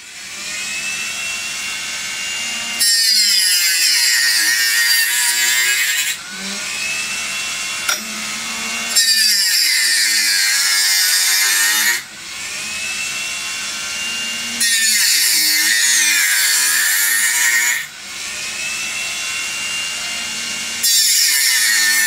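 Cordless Dremel rotary tool with a small circular saw blade cutting into the wood of a turned tulip blank, sawing out the waste between the petals in four cuts of about three seconds each. Between the cuts the tool whines freely, its pitch rising and falling.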